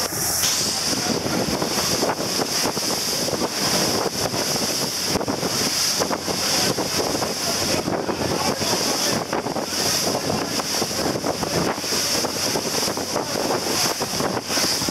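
Wind buffeting the microphone over the steady rush of water and spray from a boat running fast on open sea.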